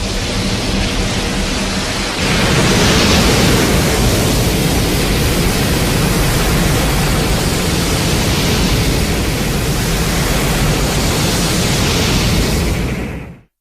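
A sound effect of loud, steady rushing noise with no clear pitch. It grows louder about two seconds in, holds, and cuts off quickly near the end.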